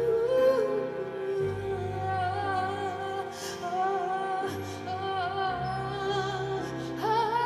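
Mezzo-soprano singing a wordless melody with vibrato over a rock orchestra's sustained chords; her line climbs higher near the end.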